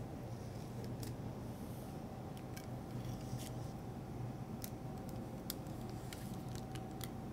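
Faint, scattered small clicks and crinkles of a paper strip being handled and peeled from around a metal ring mould on a plate, over a steady low hum.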